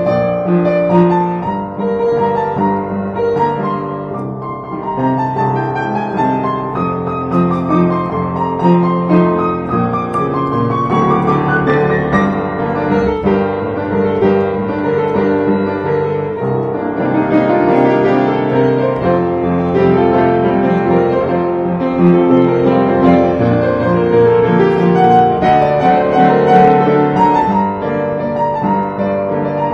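Upright piano played with both hands: a flowing improvisation in three-four (waltz) time, with many notes sounding together throughout.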